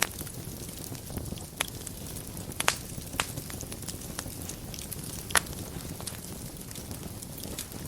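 Wood fire burning in a fireplace: a steady low rumble and hiss with scattered crackles and a few sharper pops, the loudest about two and a half seconds in and again about five seconds in.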